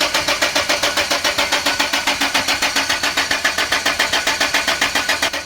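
Land Rover engine turning over on its starter motor, an even cranking rhythm of several pulses a second, without firing or catching: a cranks-but-won't-start condition.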